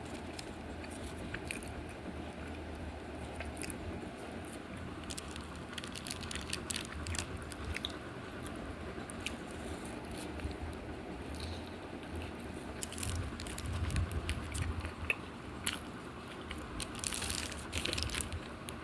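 A person chewing and biting fast food close to the microphone: irregular small crunchy clicks throughout, with a denser cluster of crunches near the end.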